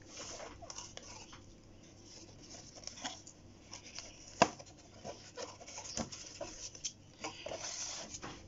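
Cardboard packaging handled by gloved hands: rustling and scraping as the cardboard insert is worked up and out of the box, with scattered light clicks and one sharp click about four and a half seconds in.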